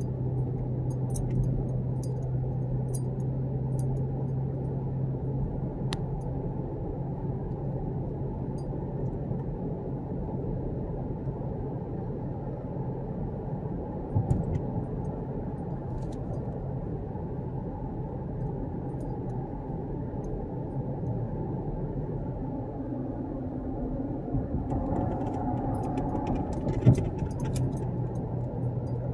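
Car driving along a road, heard from inside the cabin: a steady low drone of engine and tyre noise, with a light knock about halfway through and a sharper one near the end.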